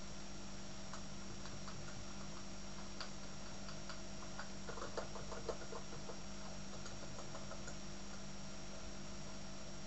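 Computer keyboard keys clicking: a few scattered keystrokes, then a quicker run of presses about halfway through, over a steady hum.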